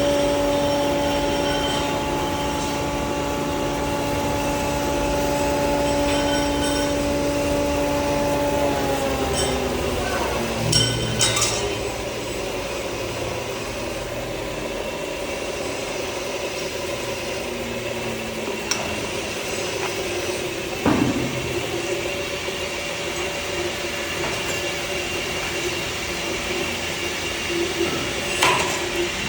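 Maize-grinding hammer mill running: a steady motor hum that drops in pitch and fades about nine seconds in, leaving a rattling grind with a few sharp metallic knocks.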